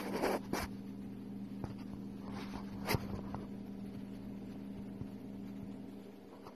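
Sand rustling and scraping as a desert viper shuffles its body down into loose sand. The scraping is densest in the first half-second, with a sharp click about three seconds in, over a steady electrical hum.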